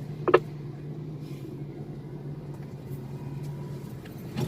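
Large mining haul truck's diesel engine running steadily, a constant low hum. A single short, loud pitched chirp cuts in about a third of a second in.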